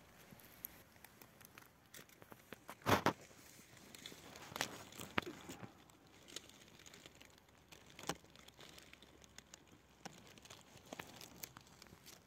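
Dry fallen leaves crunching and crackling underfoot and under hand, a run of small sharp crackles with a louder crunch about three seconds in and several more later.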